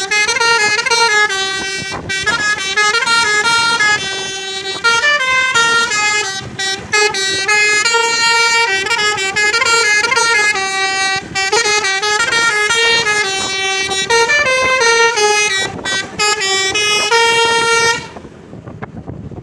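Basuri telolet multi-tone bus horn, sounding from its roof-mounted trumpets, playing a long unbroken tune of stepped notes. It cuts off suddenly near the end, leaving a quieter vehicle hum.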